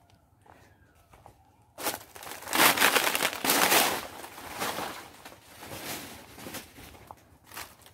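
Footsteps crunching and rustling through dry fallen banana leaves, starting about two seconds in, in uneven loud surges that ease off near the end.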